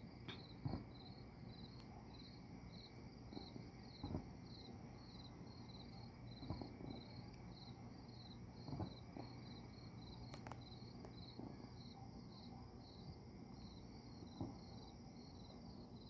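Crickets chirping in a steady, even rhythm of about three high chirps a second, with a few faint, dull thuds of distant fireworks scattered through.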